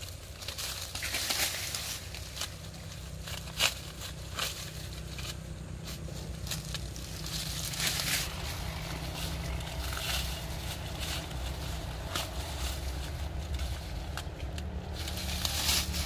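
Dry corn plants rustling and crackling as they are handled, with a few sharp snaps, typical of ears being picked by hand. A low steady rumble runs underneath.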